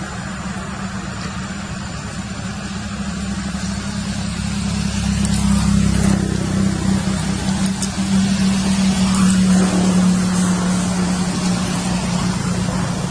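A motor vehicle's engine running with a steady low hum that grows louder about halfway through, then eases a little near the end.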